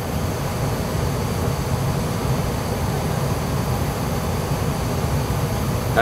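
Gas furnace running in heating mode, burners firing with the blower motor going: a steady low rumble with a hiss over it.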